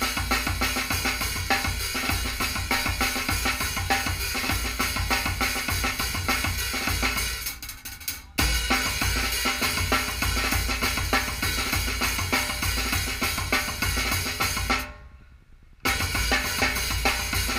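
A drum kit played with sticks: a steady groove of bass drum, snare and cymbal. The playing thins out about seven seconds in and then comes back in hard, and it stops dead for about a second near the end before the groove picks up again.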